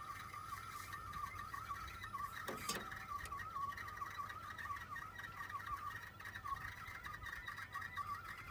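Toyota Aqua (NHP10) air-conditioning system making a continuous warbling, bubbling "poko-poko" sound: refrigerant circulating through the system, which the dealer judged normal. A brief sweeping noise cuts in about two and a half seconds in.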